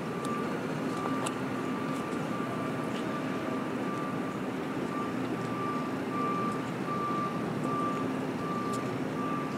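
A distant vehicle's engine humming steadily, with a high beep repeating over and over with short gaps, like a reversing alarm. A few faint high clicks come and go.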